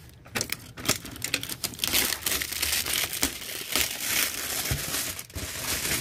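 Plastic shrink wrap being torn and pulled off a cardboard gift box: dense crinkling and crackling that starts a moment in.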